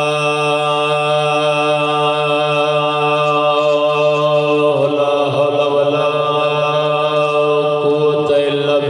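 A man's voice chanting through a microphone and loudspeakers: one long note held steady, then a wavering, ornamented melodic line from about five seconds in.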